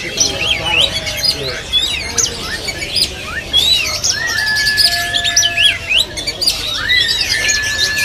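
Caged songbirds chirping and calling over one another in quick sweeping notes, with a long, level whistled note about halfway through and another near the end.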